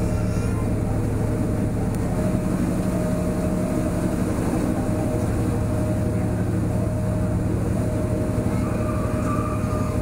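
Passenger boat's engine running steadily with a low drone, heard from the deck. Faint voices come in near the end.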